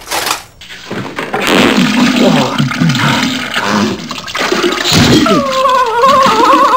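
Toilet flush sound effect: a loud rush of water with gurgling. A wavering pitched tone joins it about five seconds in.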